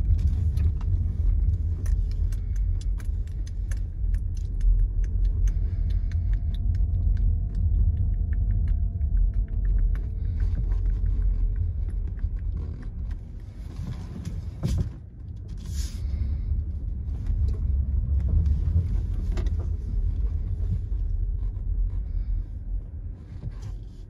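Low rumble of a car's engine and road noise heard from inside the cabin as it drives slowly, with scattered clicks and crackles from the tyres on loose gravel.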